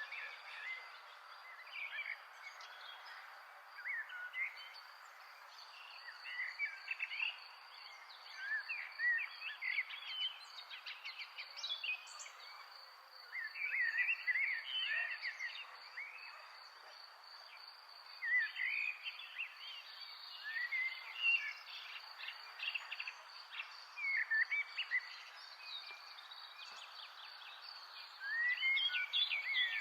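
Songbirds singing in short, chirpy phrases that come every few seconds, over a steady high-pitched insect trill and a soft background hiss.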